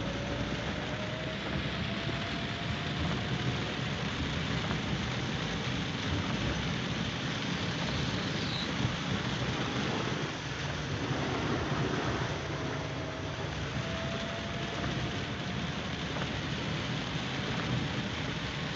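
Monsoon waterfall beside a highway, water rushing down in a steady roar.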